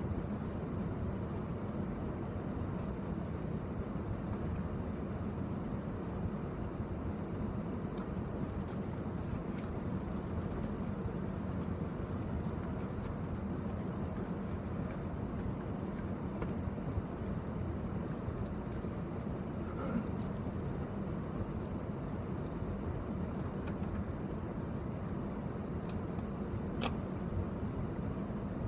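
Steady low rumble of an indoor shooting range's ventilation, with a few faint clicks now and then.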